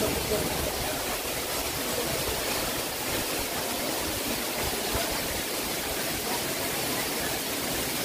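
Waterfall's rushing water, a steady, even noise with no let-up.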